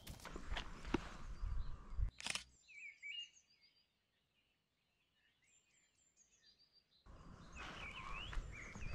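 Footsteps and rustling while walking, broken by one sharp click about two seconds in; then the walking stops for a few seconds and only high, short chirps of small birds are heard, before the footsteps start again near the end.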